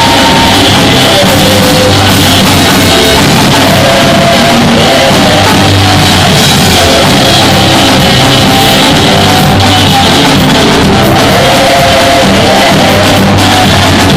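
Loud praise and worship music in a church, with voices singing over a band.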